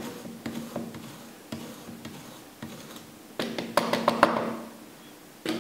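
Parmesan cheese drawn lightly over a fine Microplane grater: soft scraping strokes and small taps, with a quicker run of strokes about three and a half seconds in.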